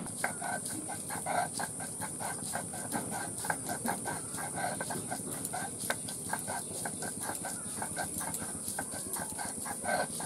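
Stone grinding: a stone roller worked back and forth on a flat stone slab (shil-nora), crushing soaked rice and mung dal into paste, giving rapid, irregular short knocks and scrapes, with a steady high whine behind.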